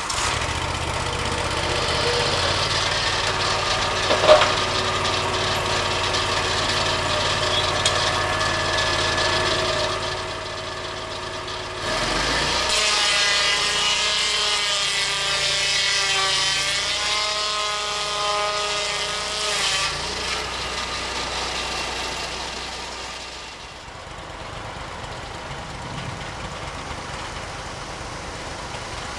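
Lucas Mill swing-blade sawmill running, its engine steady with a sharp knock a few seconds in. Partway through, the circular blade cuts into a redwood log for several seconds, louder, its pitch wavering under load. The engine then winds down and stops, leaving a faint steady hiss.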